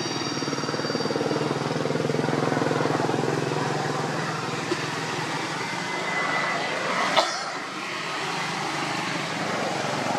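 A motor vehicle engine running nearby, swelling and then easing off, with a single sharp click about seven seconds in.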